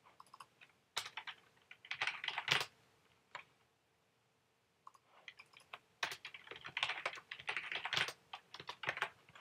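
Typing on a computer keyboard while entering a username and password: short runs of keystrokes, a near-silent pause of about a second before the middle, then a fast, dense burst of typing over the last few seconds.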